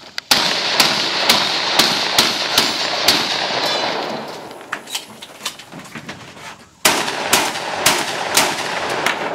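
A competition shooter firing a rapid string of gunshots, about two shots a second with echo after each. Fainter sharp reports follow in the middle, and a second loud string of shots begins near the end.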